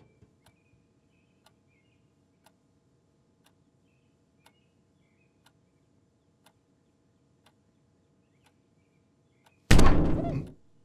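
Cartoon sound effects: a clock ticking about once a second in a quiet room, with faint bird chirps. Near the end a sudden loud thud as the cat smacks flat against the window pane, dying away over about a second.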